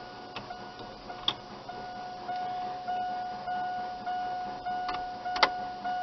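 Key-in-ignition warning chime of a 1998 Chevrolet S-10, a steady electronic beep repeating about every 0.6 s: the warning that the key is in the ignition with the driver's door open. A faint click about a second in and a sharp click near the end.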